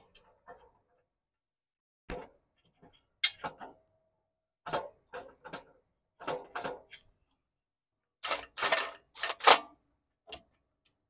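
Scattered metallic clicks and clinks of manifold bolts and a ball-end Allen wrench against a stainless steel exhaust header flange as the bolts are started, in short groups with pauses, the loudest cluster about eight to nine and a half seconds in.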